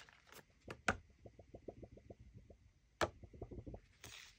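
Hands handling a laminated card and paper banknotes at a ring binder: a few sharp clicks, and about a second in a quick run of light ticks, about eight a second, for over a second.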